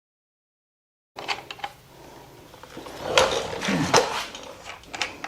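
After about a second of dead silence, scattered metal clinks and knocks as the e-bike's front wheel axle, washers and spacers are fitted into the fork, with the loudest knocks about three and four seconds in.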